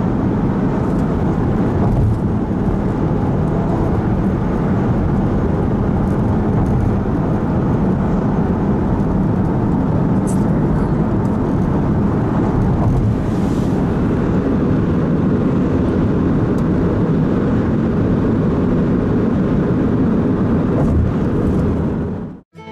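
Steady road noise inside a moving car: tyres on the pavement and the engine running at a constant speed. It drops out abruptly near the end.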